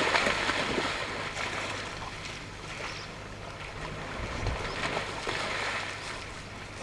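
Wind noise rushing over the microphone, swelling and easing, with a steady low hum underneath.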